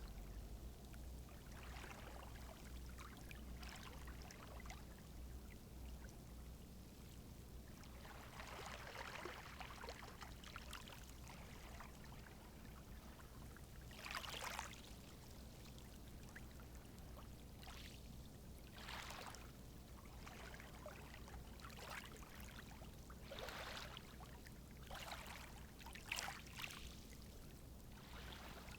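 Small sea waves gently washing in, a soft swish every few seconds over a low steady rumble.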